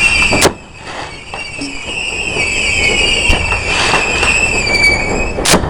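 Fireworks going off: a sharp bang about half a second in and another near the end, with a high, wavering whistle running through most of the time between them.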